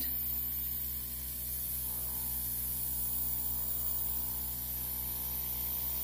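Airbrush blowing a steady stream of air to push alcohol ink across paper: an even hiss of air over the steady hum of the compressor motor.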